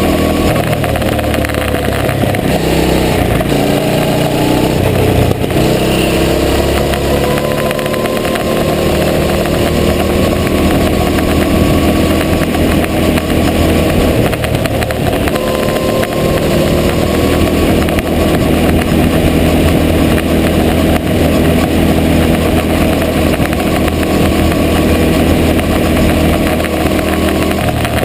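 Go-kart engine close up from onboard, running hard at racing revs around a track. Its pitch climbs and drops again and again as the kart accelerates and lifts.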